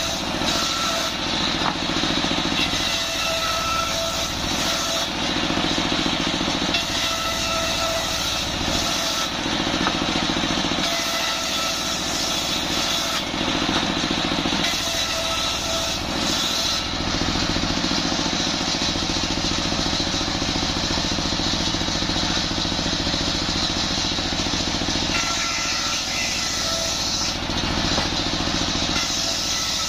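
Stationary single-cylinder diesel engine running steadily, belt-driving a table circular saw as its blade rips lengthwise through a jackfruit-wood plank. A thin whine from the blade in the cut comes and goes every few seconds.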